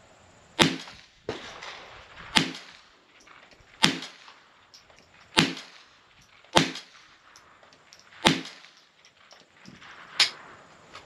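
Six rifle shots from a scoped bolt rifle on a bipod, about one and a half seconds apart, each sharp crack trailing off in a short echo, then a fainter crack near the end.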